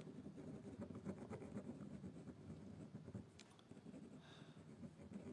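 Faint scratching of a thin pen writing letters on a wooden ice-lolly stick, in short irregular strokes.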